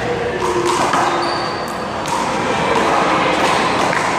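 Rubber handball being struck by hand and bouncing off the wall and court: a few sharp slaps within about two seconds, over steady background noise.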